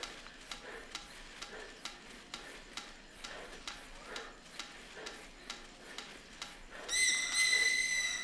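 A sheet of paper blown as a whistle gives a shrill, steady squeal near the end, rising slightly as it starts. Before it runs a steady series of soft ticks, a little under three a second.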